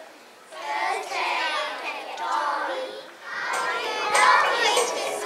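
A group of young children singing together. The singing starts after a brief gap, and a different group's song takes over a little past halfway.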